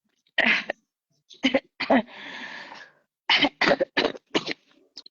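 A woman coughing hard with a cold: three harsh coughs, a drawn-out breath, then a quick run of about six coughs. The coughing comes from a sore throat.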